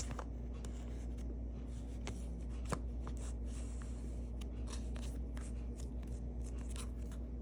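Trading cards being handled and slid against one another, with scattered light scrapes and ticks over a steady low hum.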